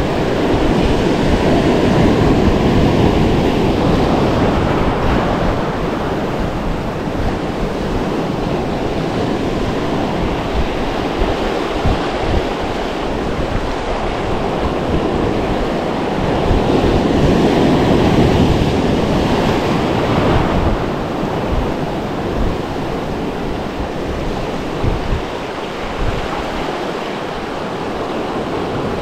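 Surf washing in over a rocky reef shelf, with wind buffeting the microphone. The wash swells louder twice, near the start and again about two-thirds of the way through.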